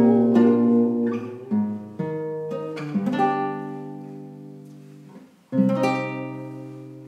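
Classical guitar strumming slow chords, several in the first three seconds, then a final chord struck about five and a half seconds in and left to ring out, fading away to close the song.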